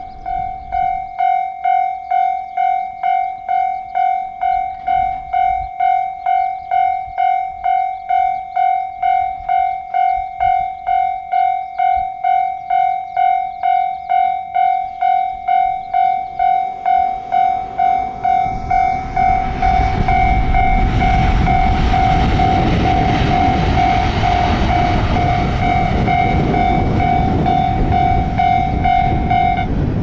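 Railway level-crossing alarm ringing, an electronic ding repeated steadily about one and a half times a second. From about 18 seconds in, a JR EF510 electric locomotive runs past with a loud rumble of wheels on rail that swells over the alarm, and the dinging stops near the end.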